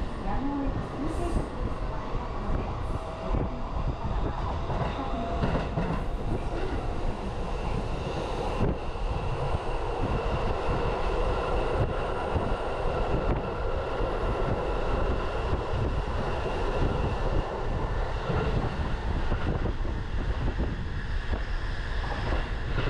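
Electric commuter train running, heard from inside the carriage: a steady rumble of wheels on the track with a few faint steady tones over it.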